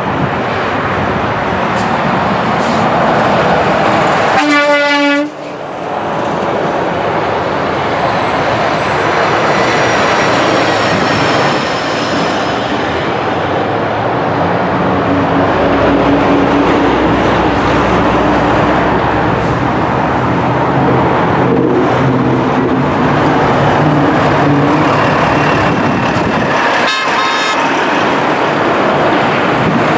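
A train passing close by, with a loud, steady rolling rush, and a short horn toot about five seconds in and another brief toot near the end.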